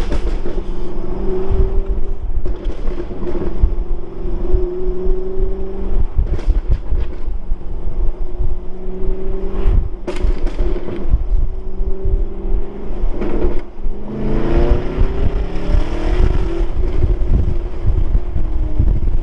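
V8 engine of a 2019 Camaro 1LE through a Corsa cat-back exhaust, droning at steady revs with several sharp crackles and pops. About fourteen seconds in it climbs in pitch as the engine pulls harder. The crackles come from the engine running rich.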